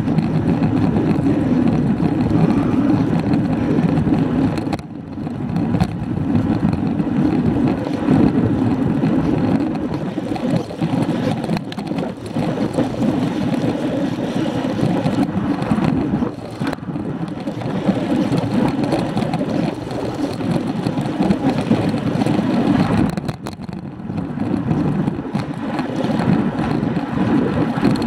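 Wind rushing over the microphone of a bike-mounted action camera, mixed with tyre noise on asphalt, as a road bicycle rides along at about 11 to 16 mph. It is a steady, rumbling noise that wavers in strength and drops briefly a few times.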